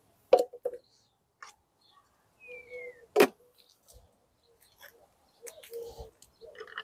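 Two sharp knocks about three seconds apart, with lighter clicks around them, from the plastic foam cannon bottle and head being handled and put together. A short falling chirp comes just before the second knock.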